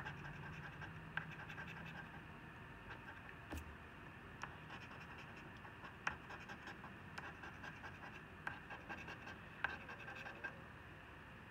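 A coin scratching the coating off a scratch-off lottery ticket: faint, uneven scraping strokes with a few sharper ticks.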